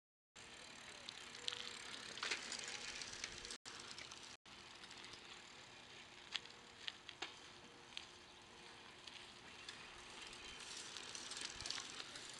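Tall bicycle ridden on asphalt: a steady faint hiss of tyres and open air with scattered sharp clicks and ticks. The sound drops out twice for an instant a few seconds in.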